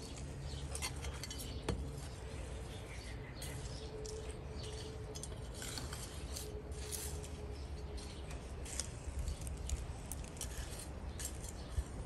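Gloved hands and a small hand tool scraping and pushing garden soil, with scattered light clicks and scratches over a steady low background hum.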